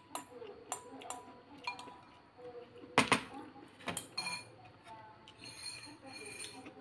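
Metal spoon clinking and scraping against a ceramic bowl, a string of sharp clinks with a short ring, the loudest two about three seconds in.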